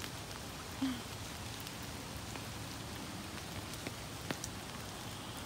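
Steady light rain falling, an even hiss with a few single drops ticking sharply close by.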